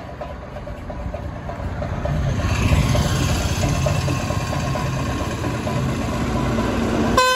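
Motorcycle engine running with a low, uneven rumble that grows louder and fuller about two and a half seconds in. It cuts off abruptly near the end into a man singing.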